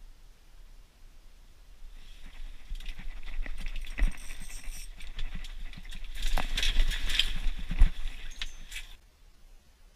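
Close handling noise of an angler setting the hook and pulling in line at an ice-fishing hole: rustling clothing, clicks and knocks against the rod and gear, starting about two seconds in and stopping abruptly about nine seconds in, with sharper knocks near four and eight seconds.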